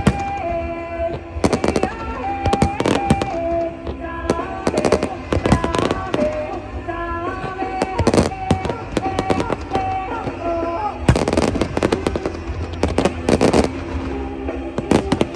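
Fireworks going off in a display: irregular sharp bangs, some in quick clusters, thickest about two to three seconds in, around eight seconds, and from eleven to thirteen seconds in. Music with a stepping melody plays underneath the bangs.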